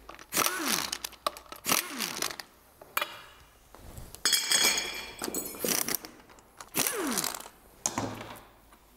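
Impact wrench in four short bursts, undoing a pulley bolt at the front of an engine. Each burst ends in a whine that falls as the tool spins down, and the longest burst, about four seconds in, rattles.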